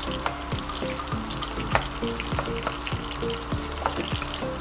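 Sliced onions and green chillies sizzling in hot oil in a kadai, stirred with a wooden spatula that knocks and scrapes against the pan several times a second.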